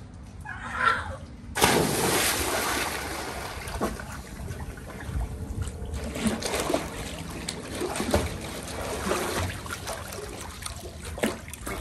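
A short yell, then a loud splash about a second and a half in as a boy jumps into a swimming pool, followed by irregular splashing and sloshing from his swimming strokes.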